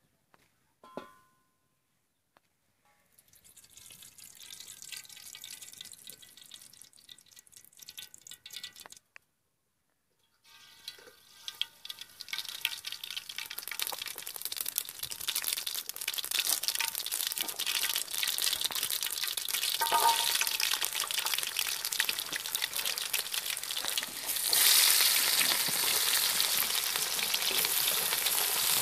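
Cooking oil heating in an iron kadai over a wood fire, its crackling and sizzling building steadily. About 24 seconds in, sliced onions go into the hot oil and the sizzling jumps louder.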